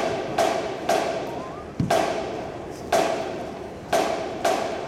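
Drum hits from a marching band's percussion, sharp and ringing, mostly about a second apart with a few half a second apart, with one low bass-drum thump about two seconds in.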